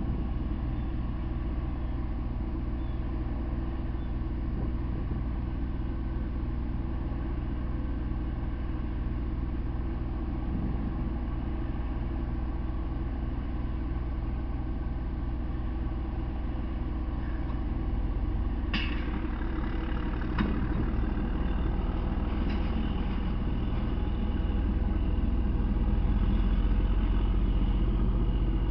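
Engine of a self-propelled rail car idling steadily, with a low hum that grows louder in the last third as the car moves forward. A couple of sharp clicks come about two-thirds of the way through.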